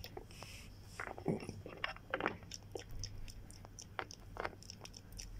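Irregular soft clicks and wet smacks of pretend chewing, made to voice a toy pet figure eating from a toy bowl.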